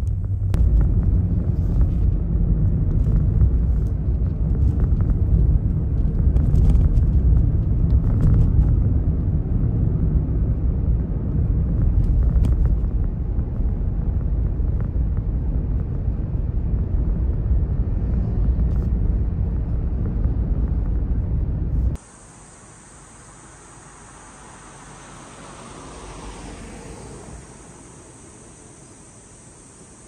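Car driving, heard from inside the cabin: steady engine and road rumble with a few faint clicks. About 22 s in it cuts to a much quieter outdoor sound, a steady high hiss with a soft swell and fade a few seconds later.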